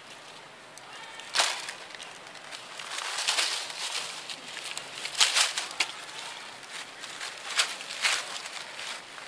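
Dry fallen leaves crunching and rustling in several short, sharp scrapes spread across a few seconds, with a faint hiss between them.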